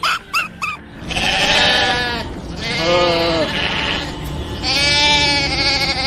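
Three long bleats from a goat or sheep-like farm animal, each rising and falling in pitch, after a few short high notes at the very start.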